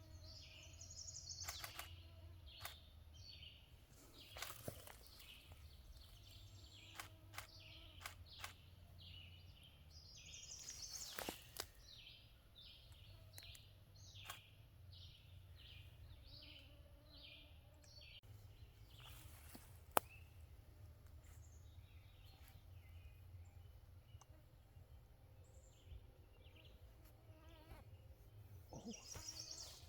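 Faint outdoor background with series of short, high bird calls repeating about once or twice a second, and a few sharp clicks, one louder click about two-thirds of the way through.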